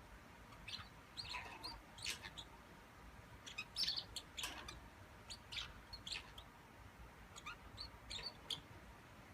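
A bird chirping in short, scattered high calls, coming in little clusters, the loudest about four seconds in.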